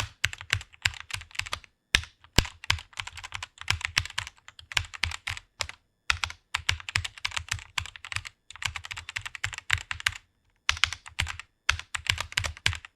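Fast typing on a computer keyboard: quick runs of key clicks broken by short pauses, with two lone keystrokes about two seconds in.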